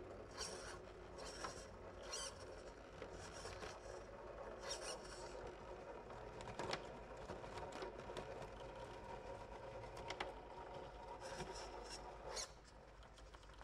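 RC rock crawler crawling slowly over boulders: the faint whine of its Hobbywing 1800kv brushless motor and geared drivetrain under a steady hum, with scattered scrapes and clicks of tyres and chassis on the rock. It stops about twelve seconds in.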